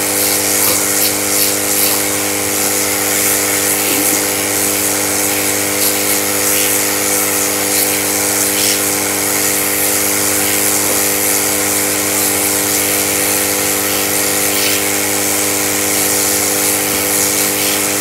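Hot air rework gun blowing steadily, an even rush of air over a steady motor hum, as it heats and softens the plastic of an e-rickshaw charging socket so its pins can be pulled out.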